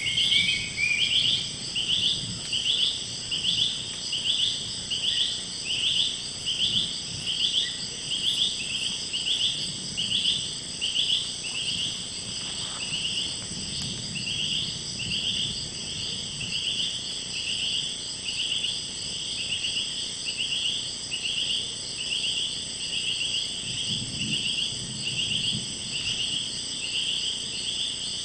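Rainforest insect chorus: one insect calling in a steady pulse about twice a second, over several continuous high-pitched insect drones.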